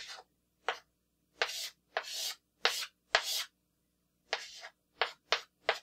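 Chalk on a chalkboard, drawing the lines of a grid and writing digits: about ten separate strokes, some quick and some drawn out for up to half a second, with short gaps between.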